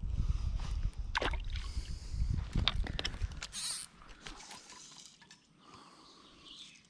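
Rumbling handling noise on a GoPro's microphone, with a few sharp clicks, dying down after about four seconds.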